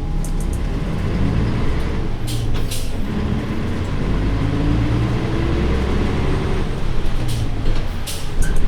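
Nissan Diesel Space Runner bus's PF6HT six-cylinder diesel heard from on board, pulling under load with its pitch rising for a few seconds before it levels off. Short air hisses come about two seconds in and again near the end.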